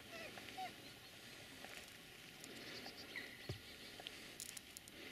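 Faint calls of distant waterbirds across a lake: a few short calls scattered through, over a low background hiss, with a few faint clicks near the end.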